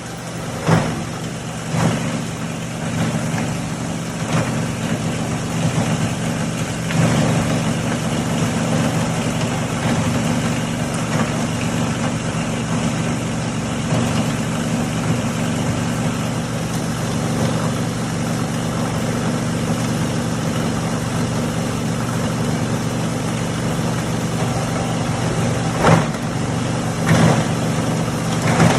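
Ball & Jewel 25 hp open-rotor three-blade granulator running loudly and grinding flexible pieces: a steady motor hum under continuous chopping and rattling. There are sharp cracks about a second in and again near the end as pieces are cut.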